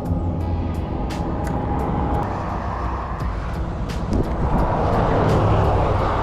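Road traffic: a steady low engine rumble, then a vehicle's engine and tyre noise swelling as it comes close, about two-thirds of the way through.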